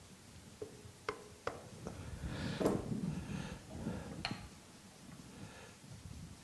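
Light taps of a knocker rod on a planer knife in the cutterhead of a Makita 2040 planer, nudging the knife to set its projection: four soft clicks about half a second apart, then faint scraping and handling noise with a couple more clicks.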